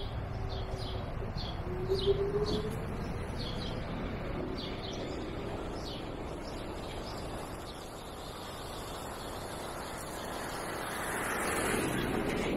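Birds chirping in short repeated calls, several a second, over steady street and traffic noise; near the end a broad whooshing swell of noise rises.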